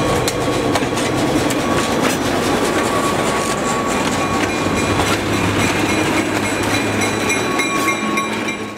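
Diesel freight locomotives passing close by: a steady engine drone under the rumble of wheels, with scattered clicks over the rail joints and thin high ringing tones. The sound fades out just before the end.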